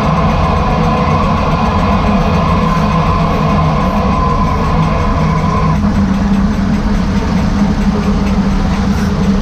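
Mercedes-Benz Sprinter van on the move, with a steady whine over the low road and drivetrain rumble, the bad noise the owner traces to the rear differential. The whine stops about six seconds in while the rumble carries on.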